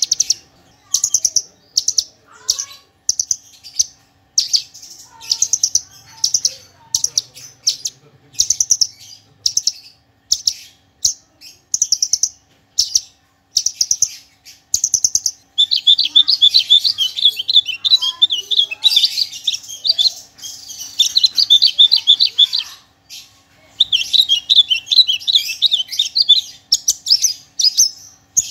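Javan bushlark (branjangan, parva form) singing a full song packed with mimicked phrases. It begins as short, high, rapid-fire trilled phrases separated by brief gaps. From about halfway it becomes a denser, continuous warbling, broken by one short pause.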